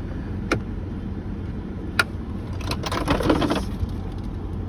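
2005 Chevy Trailblazer idling steadily, with two sharp clicks and a second-long clicking rattle of small metal parts as dashboard trim screws are worked out.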